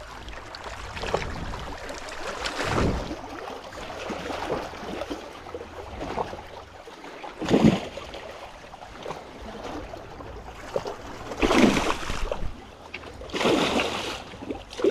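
Water sloshing and splashing over a steady wash of noise, with four louder surges spread through.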